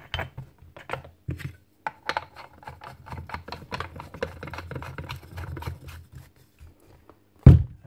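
Irregular metal clicks and scraping as the side handle is screwed into a Makita 9069 angle grinder's gear head, then a single loud knock near the end.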